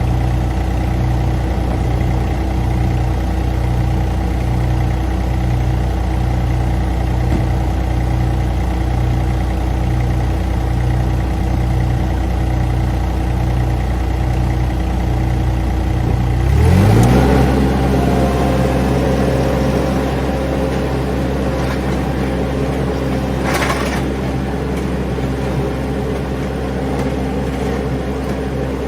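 Mini skid steer's engine idling steadily with a slow, even pulse, then throttled up sharply about two-thirds of the way in and held at a higher speed. A single short knock follows a few seconds later.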